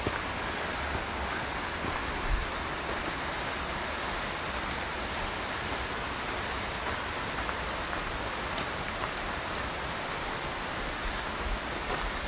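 Steady rush of a mountain creek running below the trail, with a couple of soft low thumps.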